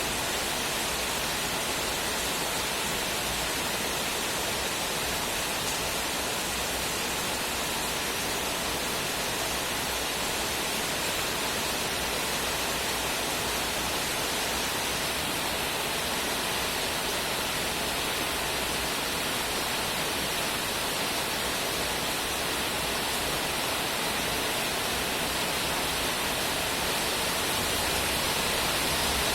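Steady rain, an even dense hiss with no single drops or thunder standing out.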